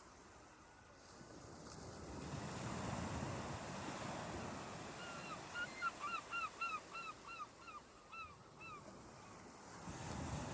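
Surf washing in, swelling a couple of seconds in and again near the end, with a bird calling in a quick run of about a dozen short, falling notes in the middle.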